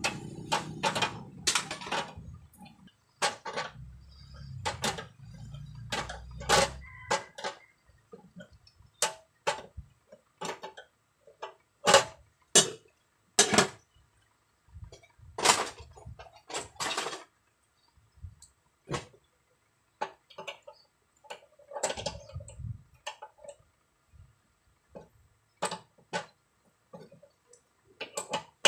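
Irregular clicks, clinks and knocks of hand tools and small screws against a sheet-metal enclosure being handled and assembled, with a low rumble during the first several seconds.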